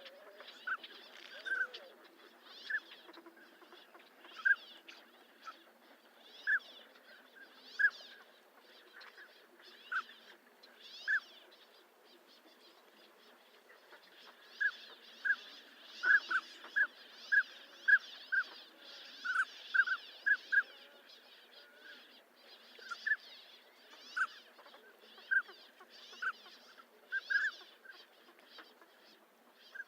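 Northern pintail calling: short whistled notes, some single and some in quick runs, with the busiest run around the middle.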